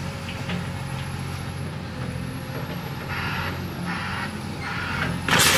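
Cat hydraulic excavator's diesel engine running steadily while its bucket crunches into a house, with a few short crunches in the second half. Just before the end, part of the house collapses with a sudden loud crash.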